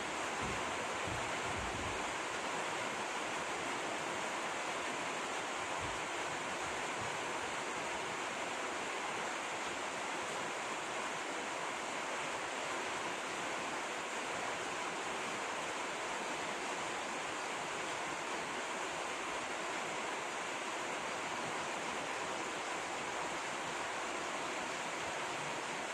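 Steady rushing of flowing water, with low rumbles of wind on the microphone in the first couple of seconds and again about six seconds in.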